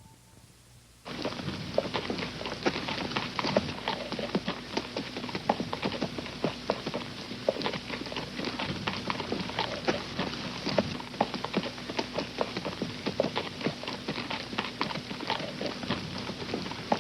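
Horse walking at a steady pace, its hooves clip-clopping in an even run of short knocks that starts about a second in.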